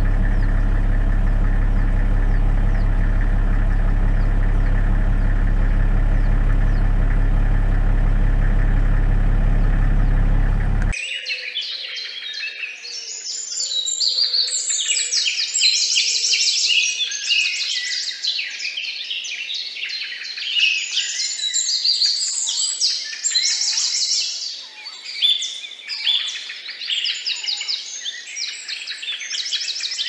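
A steady low hum with evenly spaced overtones, the loudest thing heard, cuts off abruptly about eleven seconds in. After it comes a dense chorus of many small birds chirping and singing.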